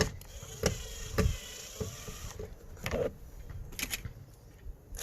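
Irregular clicks and knocks of a screwdriver and hands working at the screws of a plastic car door trim panel, over a faint steady hum that stops a little over two seconds in.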